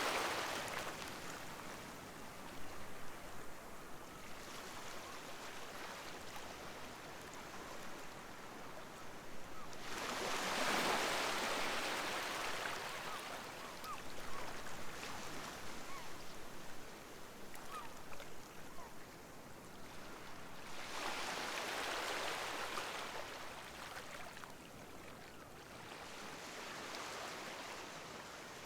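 Sea waves washing onto the shore, swelling and ebbing in slow surges, the largest a little after ten seconds in and others near the middle and end. Faint gull calls come through briefly between the surges.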